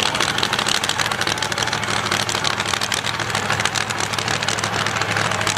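Drag-racing car engine idling, a steady, even run of rapid exhaust pulses.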